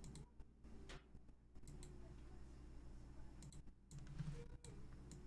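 Near silence over a low steady hum, broken by a few faint, scattered clicks of a computer mouse, about six over five seconds.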